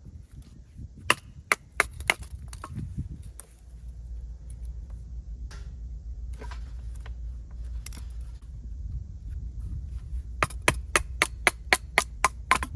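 Sharp wooden knocks: a few scattered strikes in the first few seconds, then a quick, even run of about ten strikes near the end, roughly four a second, over a steady low rumble.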